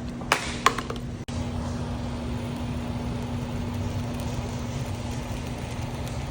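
Two sharp knocks in the first second, then a steady machine hum with one constant low tone.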